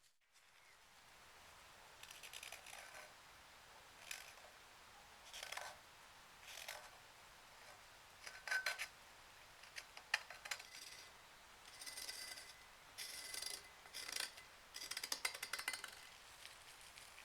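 Hand work on old blowtorch parts: a string of short scraping and rubbing strokes, some about a second long, with a few sharp clicks in between.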